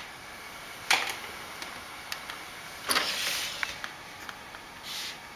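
A cat batting at a computer DVD drive: a sharp knock about a second in, a longer scraping rush about three seconds in and a softer one near the end, with light clicks between, over a steady hiss.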